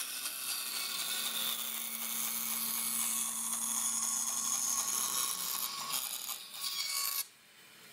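Bandsaw running, its blade cutting a curve through a thin plywood sheet: a steady high hiss of blade in wood over a low motor hum. The sound cuts off abruptly about seven seconds in.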